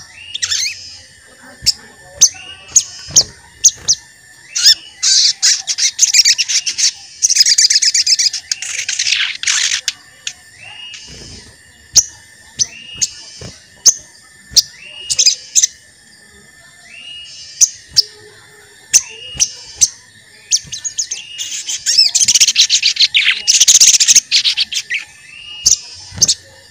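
Sogon bird calling: a string of sharp, short 'cuit' chirps about once a second, broken twice by long bursts of rapid, high chattering song. A faint steady high tone runs underneath.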